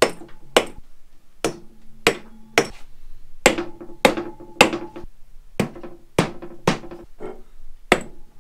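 Rubber mallet tapping the finned cylinder barrels of a Honda CB750 engine, about fourteen blows at roughly two a second, each with a short ring, to break the barrels loose from the crankcase and base gasket.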